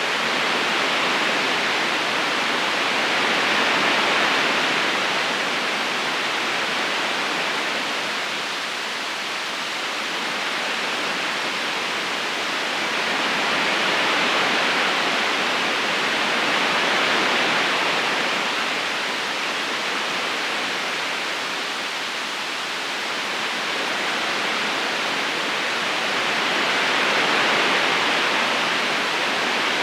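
Steady rush of flowing river water, an even hiss without distinct splashes, swelling and easing slowly every several seconds.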